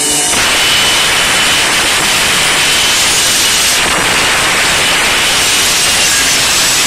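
Homemade table saw, its circular blade belt-driven at 1:1 by an old 360 W washing-machine motor, cutting through a sheet of chipboard: a loud, steady rasping cut with a thin high whine under it in the first half.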